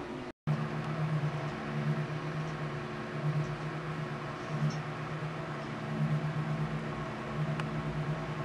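A steady low mechanical hum, its deepest tone swelling and fading about once a second, broken by a split-second dropout just after the start.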